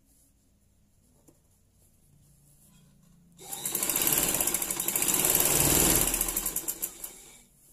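Sewing machine stitching a seam through curtain fabric: a fast, even clatter of the needle that starts about three and a half seconds in and stops shortly before the end.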